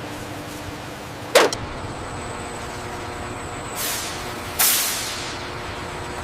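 Heavy truck running steadily. A sharp clank comes about a second in, then two hisses of air, the second louder and fading over about a second.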